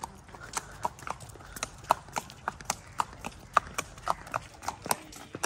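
Horse's hooves clip-clopping at a walk on hard brick paving, a steady run of sharp hoofbeats, about three to four a second.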